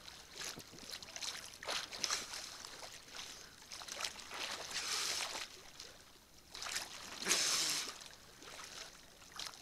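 Small waves sloshing and lapping against a camera at the waterline, in irregular splashy surges, the biggest about five and seven seconds in.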